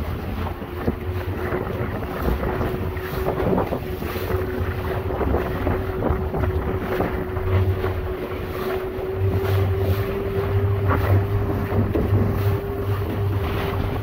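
Small Suzuki outboard motor running steadily under way, its pitch creeping slightly higher, as waves slap against the thin aluminum hull of a 12-foot tin boat. Wind buffets the microphone.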